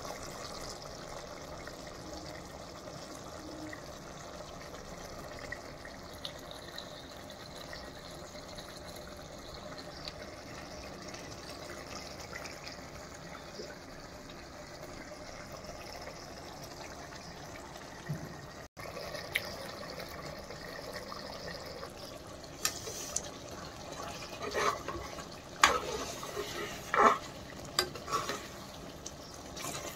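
Chicken curry boiling in an open metal pot, a steady bubbling hiss. In the last third, a string of sharp knocks and clinks sounds over it.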